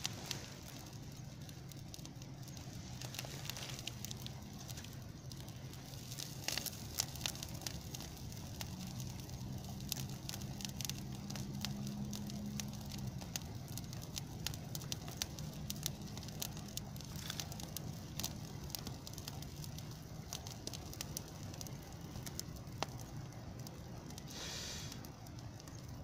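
Dry brushwood bonfire burning, with frequent irregular sharp crackles and pops over a steady rush of flame.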